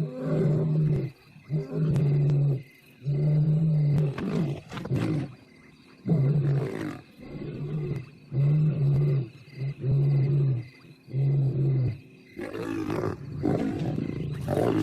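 Lions snarling and growling aggressively in a confrontation between two males and a cornered young lioness: a rapid series of loud, roughly one-second snarls with short breaks between them.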